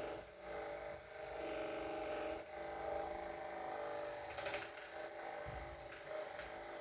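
Handheld electric percussion massager running with a steady motor hum as it is worked over the patient's back muscles.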